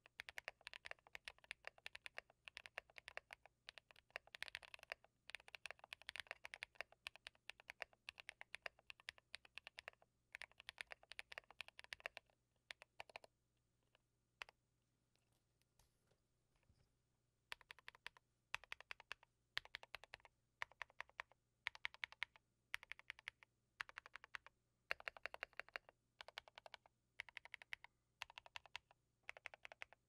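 Typing on a custom Baka60 60% mechanical keyboard with Tecsee Porcelain Blue switches lubed with Krytox 205g0, an FR4 half plate, a tempest/tape-modded PCB and PBT keycaps. The keystrokes come in a fast, steady run for about 13 seconds, stop for about four seconds apart from a couple of lone presses, then return as short runs of keystrokes with brief pauses between them.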